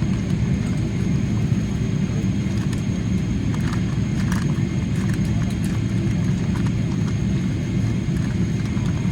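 Steady low rumble inside a Boeing 777-300ER passenger cabin on the ground after landing, with a few faint clicks around the middle.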